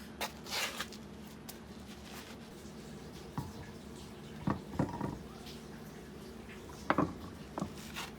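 A handful of short, light knocks and clicks, spaced seconds apart, over a steady low hum: a car wheel and its lug nuts being handled during a tyre change.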